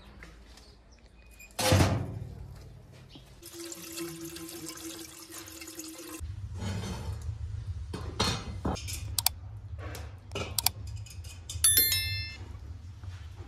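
A door shuts with a loud thunk about two seconds in. Then water from a garden hose pours into an aluminium pot for about three seconds, the pot ringing with a held tone as it fills. After that, metal cookware clinks and knocks over a low steady hum, with one ringing metallic clang near the end.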